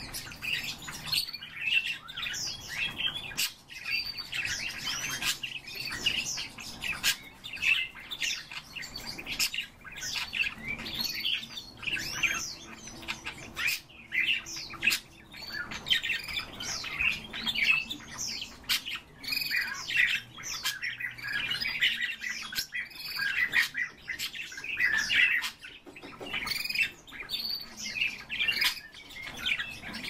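Pet cage birds, budgerigars and crossbills, chirping and chattering together: a continuous stream of many short overlapping chirps, squawks and warbling calls.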